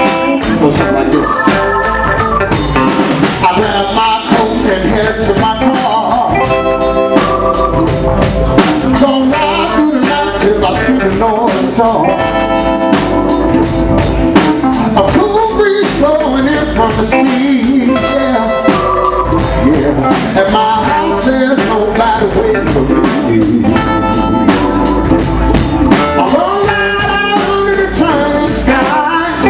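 Live blues band playing, with a man singing lead over a steady drum beat and instruments.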